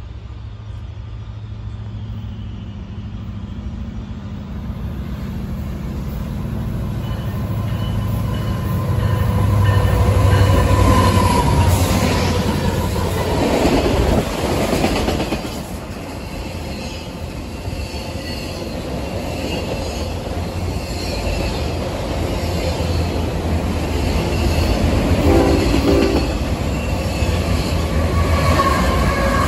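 Two diesel freight trains running through at speed on adjacent tracks. The first, an autorack train, swells to its loudest as its locomotives pass, then drops in pitch, and its rolling wagons clack and rumble on. Near the end a second train, led by a GE ES44AC locomotive, comes in on the other track, with a brief horn sound.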